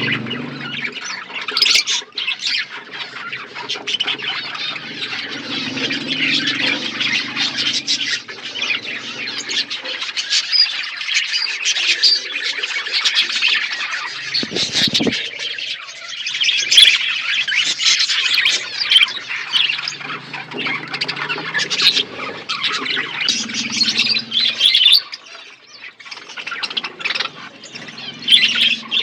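A flock of budgerigars chattering continuously: many overlapping quick, high chirps and squawks with no break.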